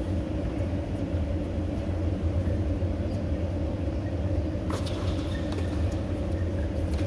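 A steady low rumble, with a few faint clicks about five seconds in.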